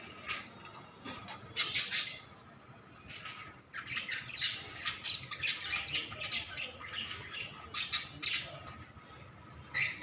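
Cockatiels squawking and chirping in many short calls, loudest about two seconds in, with wings flapping near the end.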